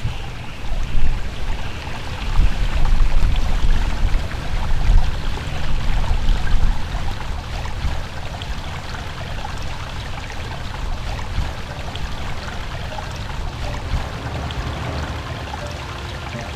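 Water running over rocks in a stream, a steady rushing hiss. Gusts of wind rumble on the microphone during roughly the first half.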